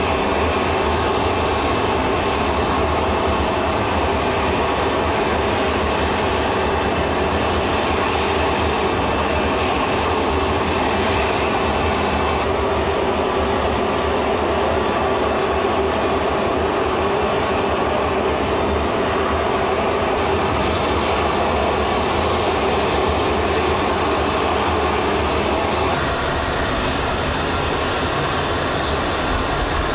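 Steady jet-engine noise of aircraft running on an airfield, a continuous even roar and hiss that shifts slightly in tone a few times.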